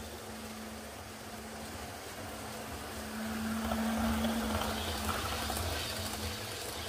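Hornby OO gauge Class 390 Pendolino model train running on the layout track, a steady motor hum with wheel rumble. It grows louder from about three seconds in, loudest around four seconds as the train passes close, then eases off.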